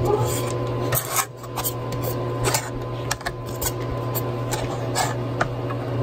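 Plastic shell of a G-Drive Mobile external drive enclosure handled and pressed together by hand: scattered light clicks and rubbing of plastic, over a steady low hum.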